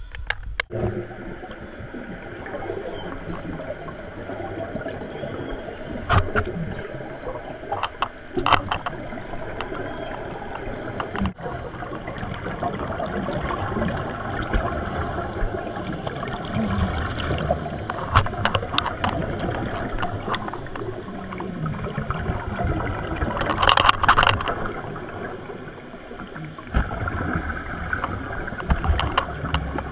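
Scuba regulator breathing recorded underwater: muffled bubbling and rumbling, with louder bursts of exhaled bubbles now and then, the loudest near the end.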